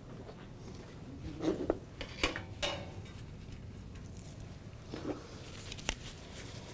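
Kitchenware clinking and knocking: a round metal serving tray set down on the counter and utensils handled, making a handful of separate sharp knocks and clinks with short pauses between them.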